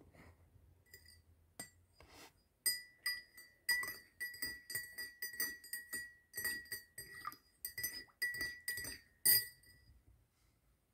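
A spoon stirring in a ceramic mug, clinking against its sides in a quick, irregular run of ringing chinks, about two or three a second, the last one the loudest.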